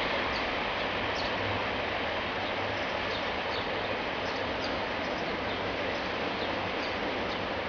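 Steady city traffic noise with small birds giving short, high chirps every second or so.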